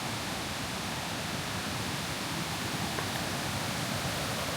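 Steady rushing of water pouring down the cascades of Kuang Si Falls, an even hiss with no breaks.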